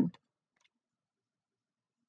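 Near silence after a woman's reading voice trails off at the very start, with a faint click about half a second in.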